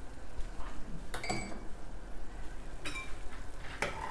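Metal spoon clinking against a large stainless-steel pot three times, each clink ringing briefly, over rice boiling in water.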